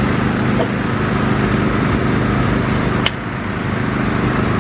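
Heavy diesel engine running steadily at a low drone. A single sharp knock comes about three seconds in.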